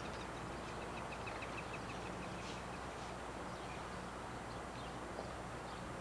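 Faint outdoor background noise: a steady hiss with a low hum underneath, and a quick run of faint ticks, about eight a second, from about a second in for a couple of seconds.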